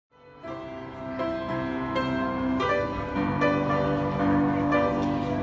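Upright piano being played: a slow melody over held chords, fading in just after the start.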